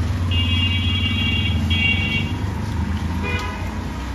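Steady low hum, with a high pitched, horn-like tone lasting about two seconds with a short break in it, then a shorter toot about three seconds in.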